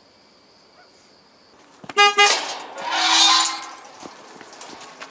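Car horn giving two quick toots, then about a second of loud rushing noise.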